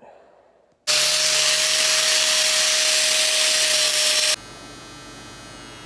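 A power tool grinding steel, loud and hissing with a steady whine, starting abruptly about a second in and cutting off sharply a little past four seconds. A much quieter steady electric motor hum with a buzz follows.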